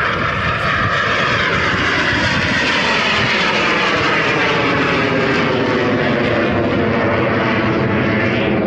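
Aircraft flying past at an air show: loud, steady engine rush with tones that sweep slowly up and down in pitch as it passes.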